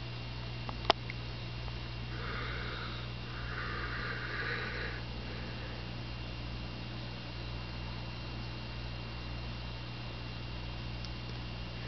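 Aquarium equipment running with a steady low electrical hum. A single sharp click about a second in, and a soft hiss from about two to five seconds in.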